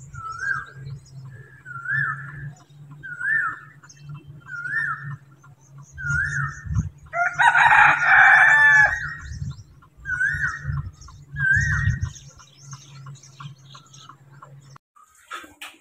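A rooster crows once, loudly, about seven seconds in, over a bird's short call repeated roughly every second and a half. A steady low hum runs underneath and stops near the end.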